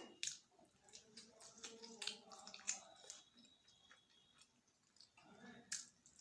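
Quiet, wet chewing and lip-smacking of someone eating cheese macaroni, with scattered short mouth clicks.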